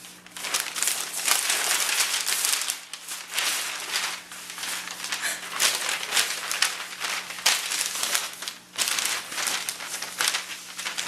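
Newspaper sheets rustling and crinkling as they are opened and folded by hand, going on almost without pause, with brief lulls about three seconds and nearly nine seconds in. The large sheets are hard to fold and crumple as they are handled.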